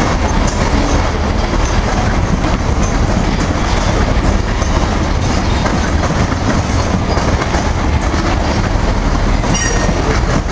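Grain train's covered hopper cars rolling past at close range: a steady, loud rumble and rattle of steel wheels on rail. A brief high wheel squeal comes in shortly before the end.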